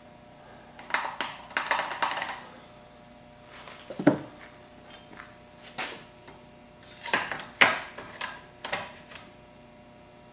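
Handling noises from working on a push mower's oil fill: a run of scattered clicks and knocks, a dense clatter about a second in, a dull knock about four seconds in and the sharpest click near the end, over a faint steady hum.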